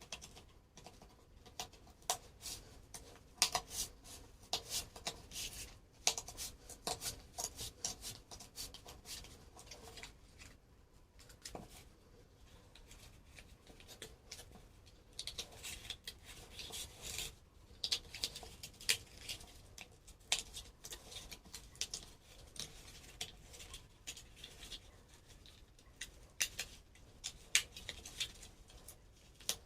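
Irregular scraping, rubbing and clicking of cardboard being worked by hand, in uneven bursts with short pauses.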